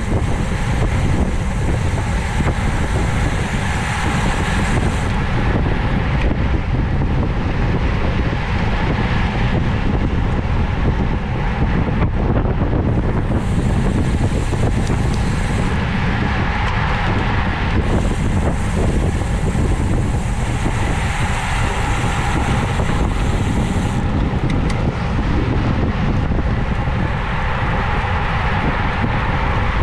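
Steady wind rush over the microphone of a camera riding on a road bike at speed, mixed with road noise.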